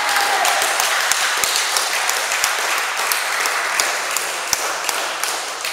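Applause from a small crowd, individual hand claps distinct, dying away gradually.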